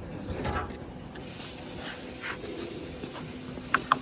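A steady hiss, with two short, sharp clicks near the end.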